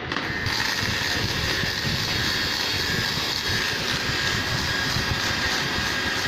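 Small electric motors of a toy RC helicopter running after being switched on: a steady whine with a rushing hiss, the hiss growing stronger about half a second in and then holding level.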